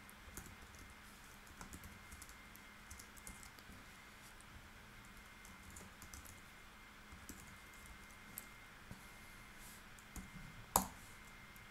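Typing on a computer keyboard: a run of quiet, irregular key clicks, with one louder keystroke near the end.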